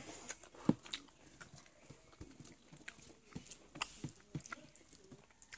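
A person chewing and smacking while eating chicken: a string of irregular, sharp mouth clicks and smacks.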